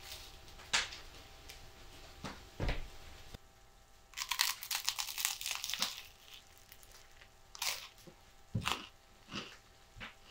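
A few separate knocks, then about two seconds of rapid crinkling and tearing starting about four seconds in, followed by a few more knocks.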